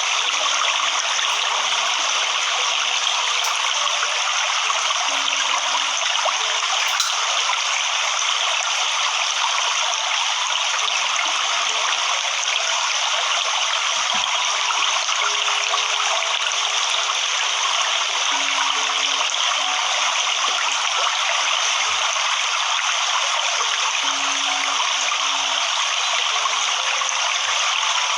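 Waterfall or cascading stream: a steady rush of falling, splashing water with no change in level.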